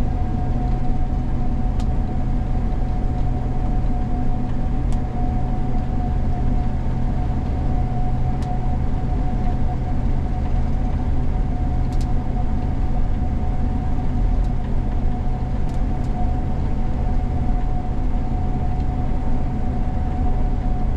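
Gleaner combine running steadily while harvesting soybeans: a constant low drone with a steady mid-pitched whine over it and a few faint clicks.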